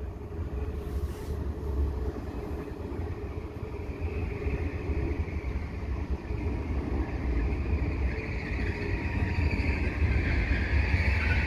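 Skånetrafiken Pågatåg X61 electric multiple unit pulling into a station platform: a low rumble with a high whine that grows louder as the train comes close.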